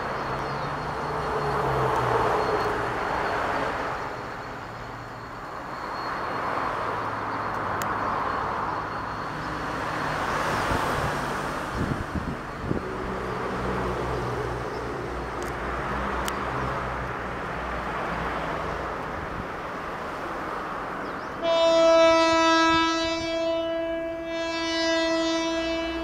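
A passenger train hauled by a GM GT22CW2 diesel locomotive pulls away, with a steady low engine drone and rolling wheel noise on the rails. Near the end a train horn sounds for about four seconds, dipping briefly before it stops; it is the loudest sound.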